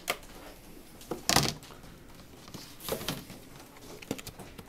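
Clear plastic storage tubs being pulled apart and handled on a table: a few short plastic knocks and rustles, the loudest about a second and a half in.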